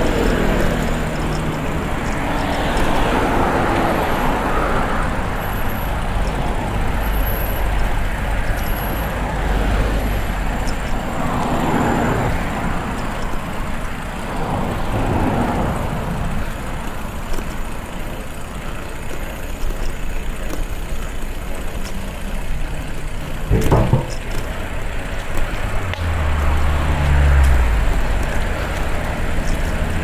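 Road traffic passing: a steady rumble of vehicles with several swelling and fading as they go by, and a heavier vehicle's low engine note near the end. A single sharp knock about two-thirds of the way in.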